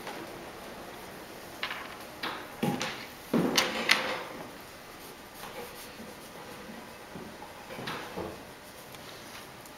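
A few short knocks and clatters, clustered about two to four seconds in, with the loudest near four seconds, and two more near eight seconds, over a steady room hum.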